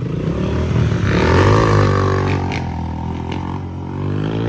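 Motocross dirt bike engine revving up and down, then running at a steadier pitch as the bike pulls away.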